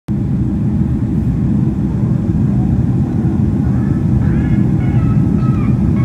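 Steady aircraft cabin noise: a deep, even rumble of engines and airflow, with faint voices coming in about halfway through.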